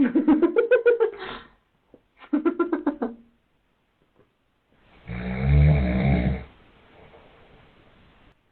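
A man snoring: two short fluttering snores in the first three seconds, then a long, deep snore about five seconds in.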